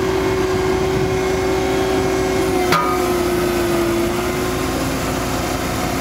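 A 10-ton JCB single-drum vibratory roller running as it compacts sand: a steady drone with a constant hum. One sharp click comes a little under three seconds in.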